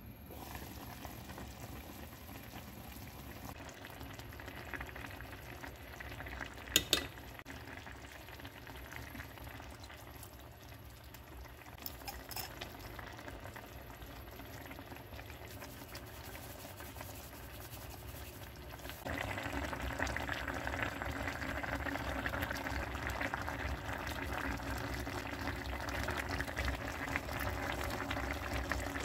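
Kimchi jjigae bubbling in a pot, a steady simmering hiss. A single sharp clink comes about seven seconds in and a few lighter clicks near twelve seconds. The bubbling gets louder from about nineteen seconds in.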